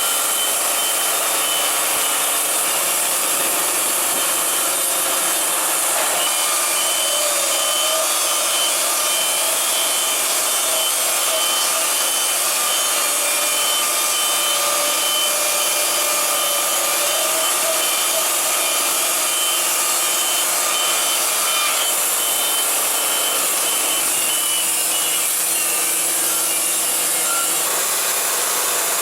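Wood-Mizer LT70 band sawmill running with its blade cutting through a log: a long, steady sawing noise.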